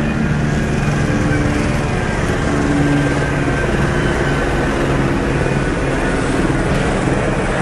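A steady low engine drone over street noise, with a low hum that shifts slightly in pitch.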